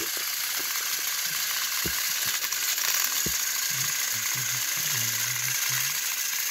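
Two battery-powered Thomas & Friends toy engines, Gordon and James, pushing head-on against each other, their electric motors whirring and plastic gears rattling steadily.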